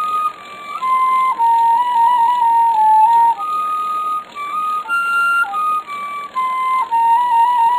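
Solo flute playing a slow melody of long held notes.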